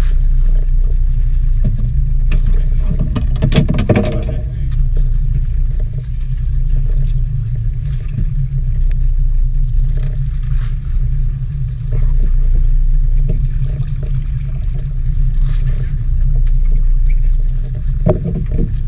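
Steady low rumble aboard a small fishing boat, with a short clatter of knocks about three and a half seconds in and another near the end.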